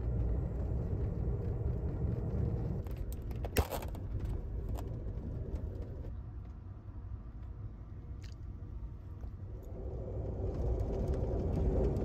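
Steady low rumble of an Amtrak Superliner car on the moving California Zephyr, heard from inside the car. A sharp click stands out a few seconds in, with a fainter tick later.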